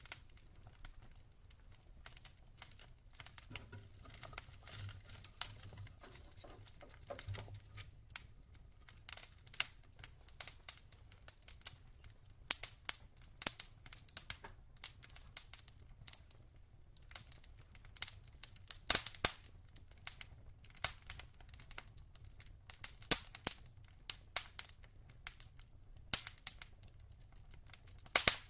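Log fire crackling, with irregular sharp pops and snaps from the burning wood. The pops are sparse at first and come thicker from about a third of the way in, with a few louder snaps among them.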